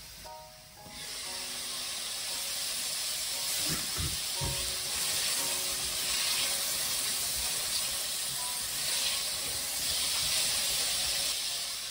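Sliced carrots sizzling in hot oil in a stainless steel pot: a loud, steady frying hiss that swells about a second in as the lid comes off, while they are stirred. A few low knocks sound around four seconds in.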